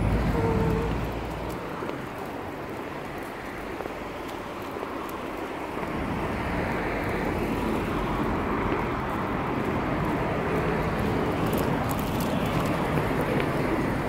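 Road traffic: a steady wash of car engine and tyre noise, quieter for the first few seconds and louder from about six seconds in.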